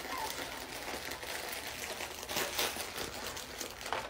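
The crinkle filling inside a large green plush dog toy crinkling as several puppies chew and tug at it: a continuous, irregular crackle.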